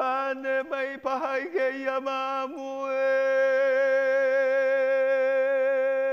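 A single voice chanting in short phrases, then from about three seconds in holding one long, slightly wavering note.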